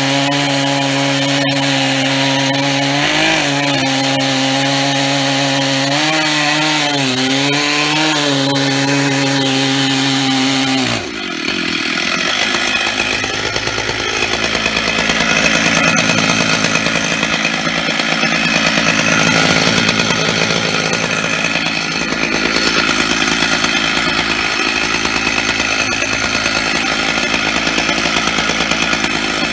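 Stihl MS 880 chainsaw, a large two-stroke, running at full throttle under load as it mills along an oak log in a chainsaw mill, its pitch wavering a little as the cut loads it. About eleven seconds in the steady engine note gives way to a rougher, noisier mix of saw and cutting sound.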